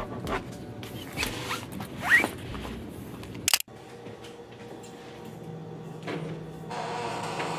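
Rustling and handling as a laptop and bag are packed up, with a zipper pulled quickly about two seconds in. After an abrupt cut about halfway, a steady low hum, with a brighter hiss coming in near the end.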